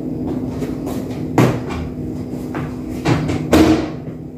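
A running microwave oven hums steadily and low. Over it come three sharp clacks, one about a second and a half in and two close together near three seconds in, as the microwave door is worked and a plate is handled.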